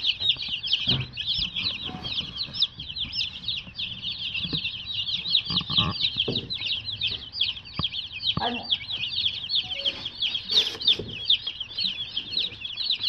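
A brood of day-old meat chicks peeping nonstop, many high, short peeps overlapping into a continuous chorus, with a few brief thumps and rustles.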